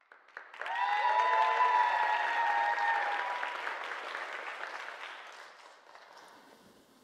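Audience applauding, with a few high held cheers in the first few seconds; the clapping builds quickly, then dies away after about five seconds.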